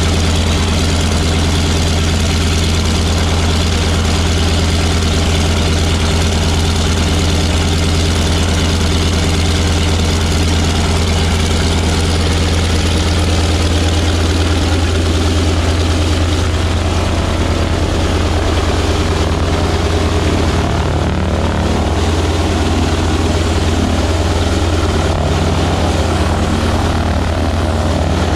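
Wright R-975 nine-cylinder radial engine of a BT-15 trainer running on the ground with its propeller turning: a steady, loud drone with a strong low hum, its sound shifting slightly past halfway.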